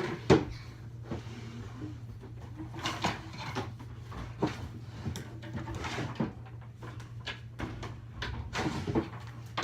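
Scattered knocks and bumps, like objects being handled and moved, over a steady low hum, with a sharper knock at the very end.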